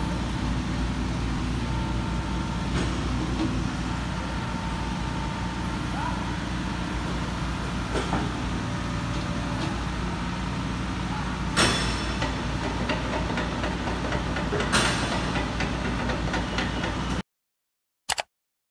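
Volvo EC55D mini excavator's diesel engine idling steadily, with two sharp metallic knocks, about eleven and a half and fifteen seconds in. The sound cuts off abruptly near the end.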